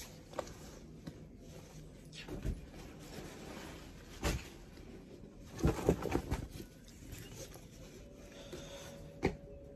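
Fabric tote bags being handled, with soft rustling and a few brief handling knocks: one about four seconds in, a cluster a little later, and one near the end.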